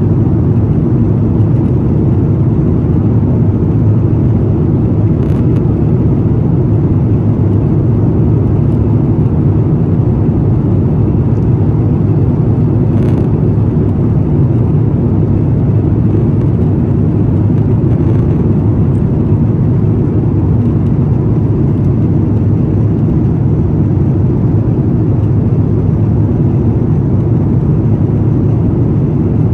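Steady low cabin noise of an Airbus A350-900 in flight, from its Rolls-Royce Trent XWB engines and the airflow, heard from inside the cabin. Two faint clicks come about five and thirteen seconds in.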